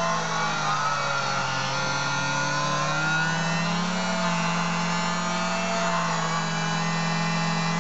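Auto lens groover running, its motor-driven grooving wheel cutting a groove into the edge of a thin plano lens as the lens slowly turns in the chuck. A steady motor hum with higher whining tones whose pitch slowly wavers.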